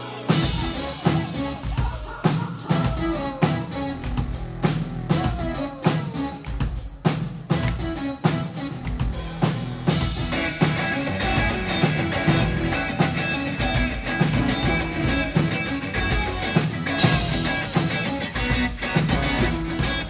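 Live pop-rock band playing: the drum kit and full band come in sharply just after the start, with a steady beat of drum hits under bass and keyboards. About halfway through, an electric guitar strumming chords thickens the sound.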